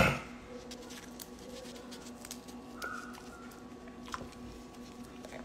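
Quiet room tone with a steady low hum and scattered faint clicks. A short loud sound cuts off right at the start, and a brief faint tone comes about three seconds in.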